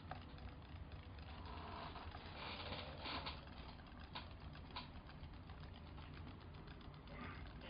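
A small electric motor running steadily with a low hum and a fast rattling tick, with a few louder clicks about three and four to five seconds in.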